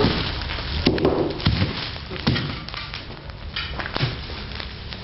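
A few dull thumps and knocks over a steady low rumble: handling noise from a handheld camera being carried outdoors.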